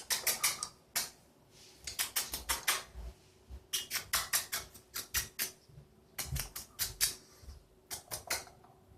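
Pet bird making kissing sounds: quick runs of sharp smacking clicks, several in a row, with short pauses between the runs.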